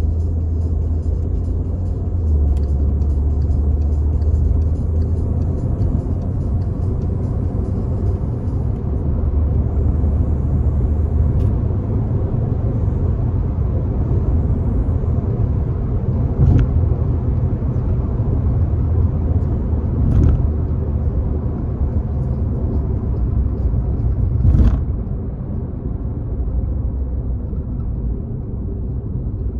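Turbocharged Volkswagen Jetta cruising, its engine and the road giving a steady low drone. Four brief sharp noises cut through it, about 11, 16, 20 and 24 seconds in.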